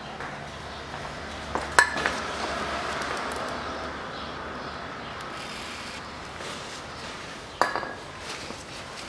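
Aerosol can of penetrating lubricant spraying through its straw onto rusted exhaust downpipe nuts, a steady hiss lasting about four seconds, to free the seized nuts. A sharp metallic clink comes just before the spray starts, and another comes near the end.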